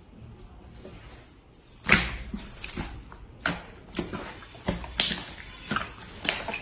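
Slime being squeezed and pressed by hand, giving sharp pops and clicks about once or twice a second, starting about two seconds in; the first is the loudest.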